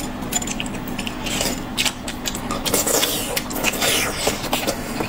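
Someone eating cold-pot skewers close to the microphone: chewing and slurping, with many small clicks and scrapes of utensils against dishes.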